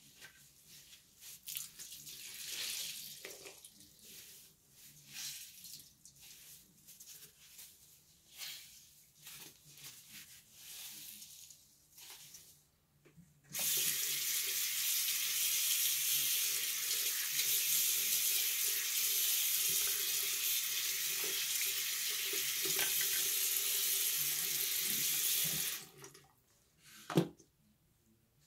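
Water running steadily from a tap into a sink for about twelve seconds, then shut off abruptly. Before it come scattered short handling noises, and a single sharp knock sounds just after the water stops.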